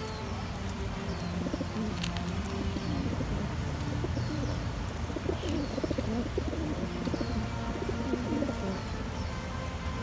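A flock of domestic pigeons (rock doves) cooing, several low throaty coos overlapping from about a second and a half in until near the end, with faint high chirps repeating above them.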